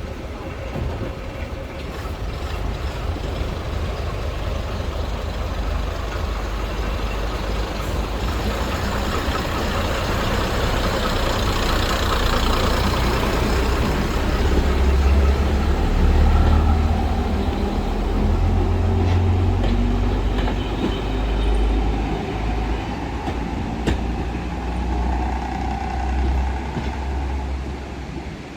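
A heavy vehicle's low engine rumble passing by, growing louder toward the middle and fading off near the end.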